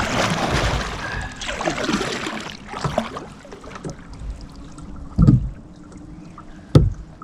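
Kayak being paddled: water rushing and splashing around the paddle blade for the first couple of seconds, then quieter dripping, with two dull knocks later on.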